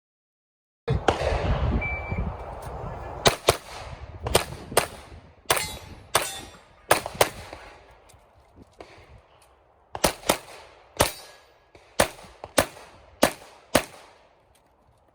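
A short electronic shot-timer beep about two seconds in, then 9mm Glock 34 pistol shots fired rapidly in pairs and small strings, about fifteen in all, with a pause of a couple of seconds in the middle.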